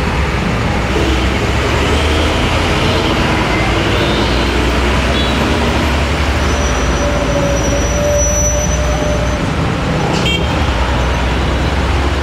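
Road traffic: heavy dump trucks and motorcycles passing close by, with a steady low engine rumble and tyre noise. A thin steady tone sounds for about three seconds from about six and a half seconds in.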